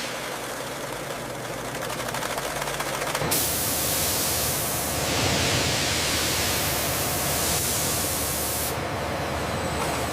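Industrial machinery running steadily with a fast fine rattle, changing abruptly about three seconds in to a louder, even hiss that eases off near the end.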